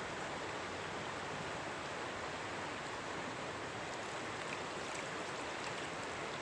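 Steady rushing of river water flowing, an even, unbroken wash of noise.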